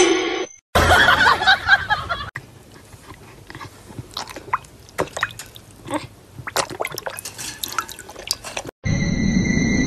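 A dog lapping water from a bowl: irregular small wet clicks and drips, after a louder noisy stretch in the first couple of seconds.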